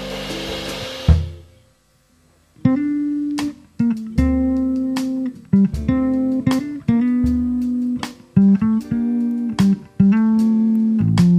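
Jazz quartet of two guitars, double bass and drums playing. The full band with cymbal wash stops on an accent about a second in. After a short silence the guitars and bass play a run of separate notes and chords with gaps between them.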